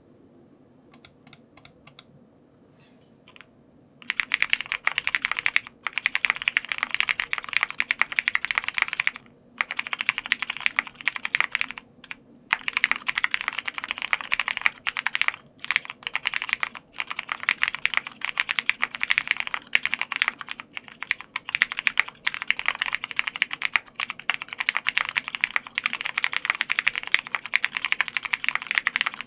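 Typing on a Bubble75 mechanical keyboard with a polycarbonate plate, lubed and filmed Cherry MX Brown tactile switches on 70 g springs, and dye-sub PBT keycaps. A few scattered keystrokes at first, then fast continuous typing from about four seconds in, broken by a couple of brief pauses.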